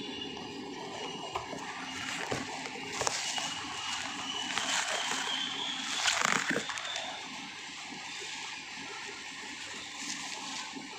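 Water sloshing and splashing, swelling loudest about five to six and a half seconds in, with a few small clicks.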